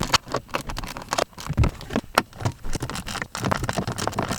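A ratchet wrench clicking in short, irregular strokes with small metal knocks, loosening the small screws that hold a blower motor resistor behind the dash.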